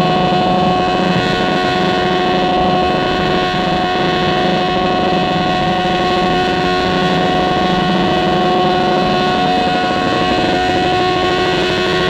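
Garden tractor engine held at steady high revs under load as it drags a stoneboat pulling sled along the dirt track.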